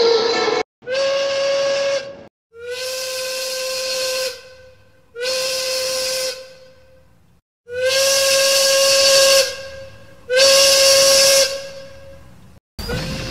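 Steam locomotive whistle blowing five separate blasts of one steady pitch, each with a rush of steam hiss, alternating shorter and longer.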